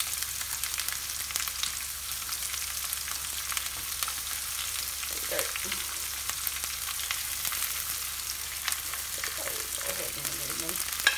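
Sliced onion sizzling and crackling steadily in hot vegetable oil in a nonstick frying pan on medium-high heat.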